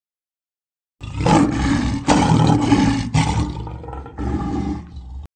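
Tiger roaring, starting about a second in, with a dip in the middle and a second shorter stretch, then cutting off suddenly near the end.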